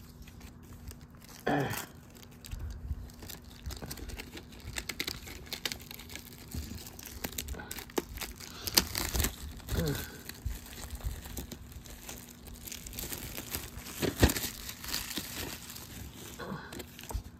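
Plastic and paper packaging crinkling and rustling, with scattered small clicks and knocks, as VHS tapes and their cases are handled and unwrapped.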